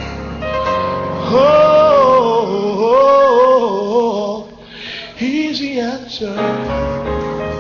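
Gospel song: a singer's wavering, ornamented vocal runs over steady instrumental backing, with a short dip in the singing a little past the middle.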